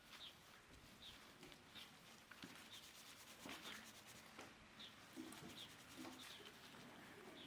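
Faint, short, high chirps repeating about once or twice a second, like a small bird calling, with a little soft rustling.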